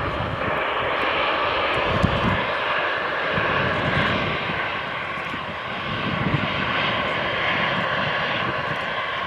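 Jet airliner on final approach, a steady engine hiss, with wind buffeting the microphone in low, irregular gusts.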